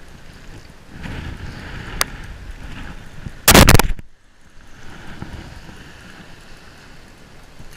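Steady wind and surf noise on the microphone. A single sharp click comes about two seconds in, and a loud, brief burst of noise under half a second long comes about three and a half seconds in.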